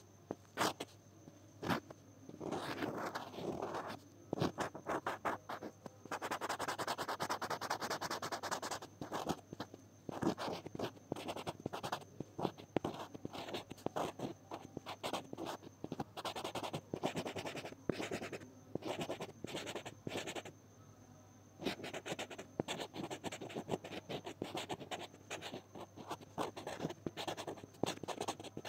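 Pen nib scratching across textured drawing paper, in quick short strokes and longer runs of steady scribbling, with a brief pause about two-thirds of the way through.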